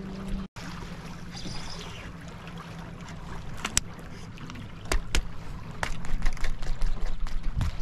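Wind on the microphone and water against a small anchored fishing boat, with a steady low hum underneath. Scattered sharp clicks and knocks come from fishing rods and a reel being handled, and they grow louder and more frequent in the last two seconds.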